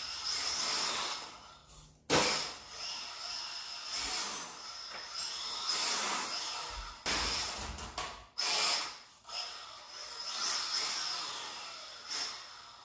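GL Racing GLA 1/27-scale AWD mini RC car driving: the small electric drivetrain and tyres whirr in repeated bursts of one to two seconds, rising and falling as the car speeds up and slows down, over a steady high whine.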